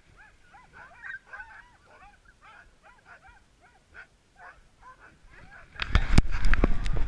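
Sled dogs in harness whining and yipping in many short rising-and-falling calls while the team waits on the trail. About six seconds in, a sudden loud clatter of knocks and scraping takes over.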